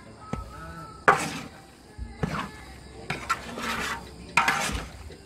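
Spatula scraping and knocking around a large steel wok, stirring a thick ground spice paste of lemongrass, galangal and turmeric. There are strokes about a second apart.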